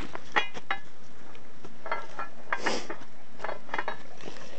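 Trewhella monkey grubber hand winch being worked with its lever: metal clanks and clicks from the ratchet gear and lever, some with a brief ringing, coming in several irregular bunches.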